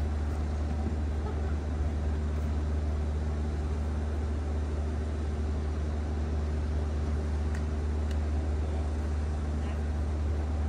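Steady low machine hum with several fixed tones, unchanging throughout, over a faint wash of outdoor noise.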